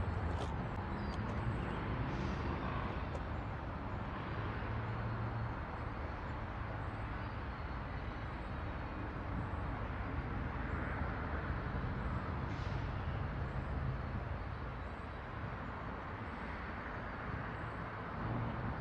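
Diesel freight locomotives rolling slowly at low throttle: a steady low engine rumble with a haze of wheel and rail noise.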